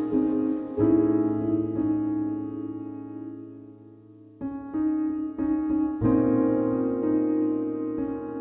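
Background music: sustained keyboard chords ringing out and slowly fading, with fresh chords struck about four seconds in and again about six seconds in.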